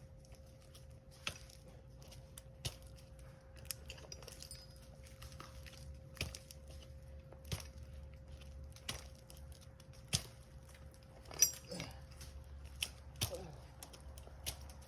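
Steel climbing-spur gaffs stabbing into a tree trunk, one sharp strike about every second and a half as the climber steps his way up or down, with the loudest strike a little past halfway, over a faint steady hum.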